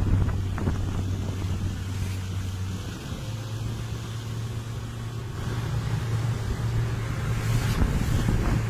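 A tour boat's engine running steadily with a low hum, with wind and water noise around it.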